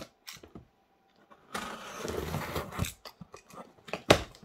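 A blade slitting the packing tape on a cardboard box, a crunchy scraping sound from about one and a half seconds in to three seconds, then a sharp knock near the end.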